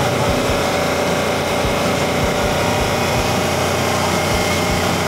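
Off-road race car engines running steadily, a continuous mechanical drone without distinct revs.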